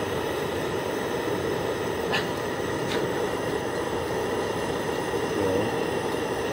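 High-output gas camping burner running on a strong flame with a steady rushing sound, a small pot of ramen boiling hard and bubbling on it. A couple of faint ticks about two and three seconds in.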